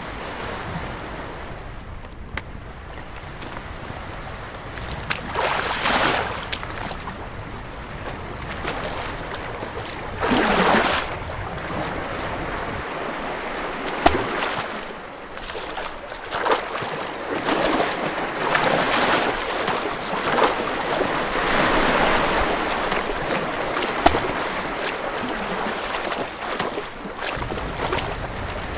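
Sea waves washing and surging over rocks in a sea cave, swelling and ebbing several times, with two short sharp clicks along the way.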